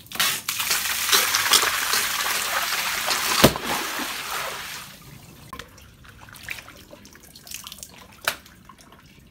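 A water-filled stretchy rubber toy bursting: a loud rush and splash of water pouring out for about five seconds, with one sharp slap about three and a half seconds in, then dying away to scattered drips and trickles.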